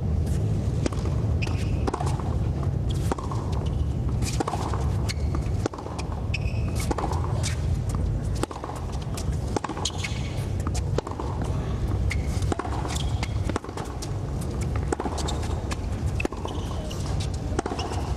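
Tennis rally on a hard court: a ball struck by rackets and bouncing, sharp pops every second or so over a steady low rumble.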